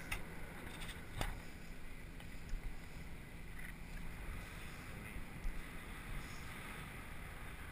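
Steady wind rushing over a GoPro camera's microphone in flight under a parasail, with a low steady hum beneath it and a single faint click about a second in.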